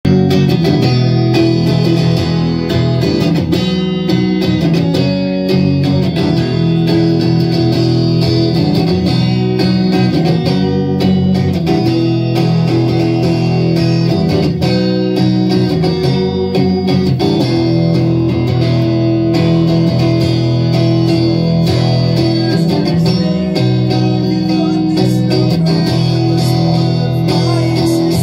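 Electric guitar played solo through an amplifier, strummed and picked chords ringing on continuously at a steady, loud level.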